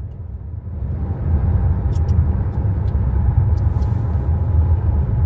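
Steady low rumble of a car heard from inside its cabin, with a few faint light clicks.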